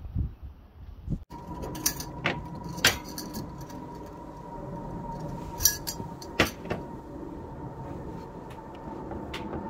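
Wind buffeting the microphone for about a second, then hands sprinkling flour and kneading dough in a wooden bamboo bowl. Several sharp clicks and clinks sound over a faint steady high tone.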